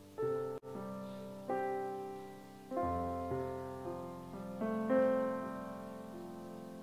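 Slow, soft piano chords played on a stage keyboard. Each chord is struck and left to fade before the next, about one a second, with a brief sharp click about half a second in.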